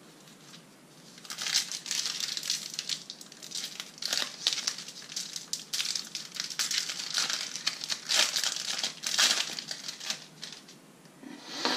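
Foil wrapper of a trading-card booster pack crinkling and tearing as it is opened by hand. Starts about a second in and fades out shortly before the end.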